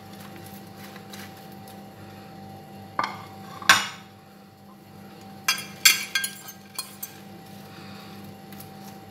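Fork and plate clinking against a glass baking dish as fried shrimp are pushed off the plate onto fries. A few separate clinks, the loudest just under four seconds in, then a quick run of clinks around six seconds, over a faint steady hum.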